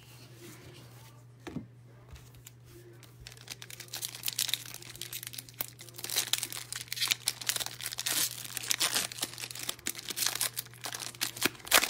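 Wrapper of a pack of trading cards being torn open and crinkled by hand: quiet at first, then a run of crackling and rustling from about four seconds in, loudest near the end.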